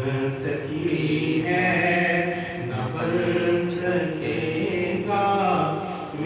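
A man sings an Urdu naat unaccompanied, in a chanting style with long held notes that bend in pitch.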